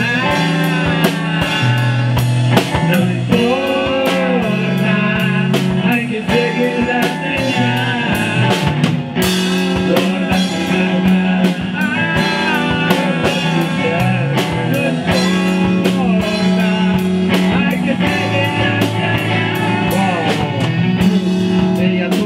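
Rock band playing: electric guitar and bass guitar over a drum kit keeping a steady beat, with bending guitar lines on top.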